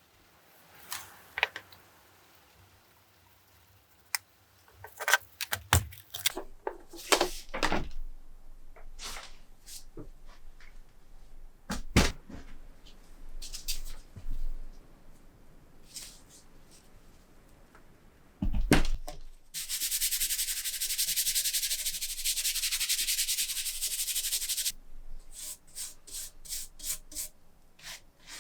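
Scattered knocks, clicks and scraping of objects being handled. Partway through, a steady high hiss runs for about five seconds and stops suddenly.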